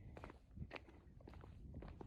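Faint footsteps of a hiker on a rough trail: several irregular scuffing steps.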